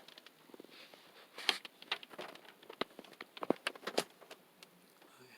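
Big raindrops striking the car, heard from inside the car as scattered, irregular taps.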